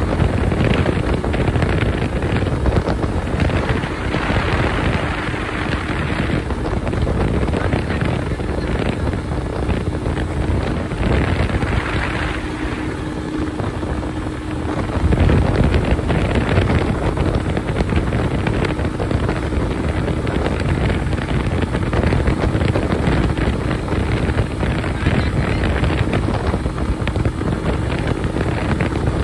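Wind buffeting the microphone of a moving motorcycle, with the bike's engine running steadily underneath. The rush eases for a moment about halfway through, then comes back louder.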